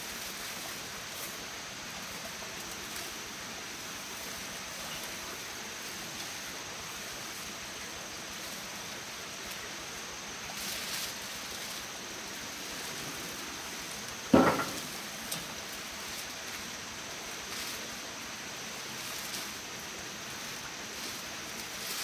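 Steady background hiss, with faint brushing rustles of dry rice stalks being handled. One short, sharp, loud sound comes about two-thirds of the way through.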